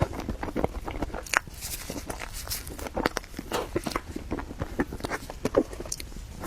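Close-up mouth sounds of someone chewing soft matcha mille crepe cake: an irregular run of small wet clicks and smacks.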